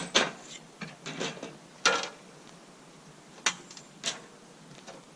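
Irregular sharp clicks and knocks, about half a dozen, as sawmill parts and a steel cable are handled and adjusted by hand. The loudest come near the start and about two seconds in.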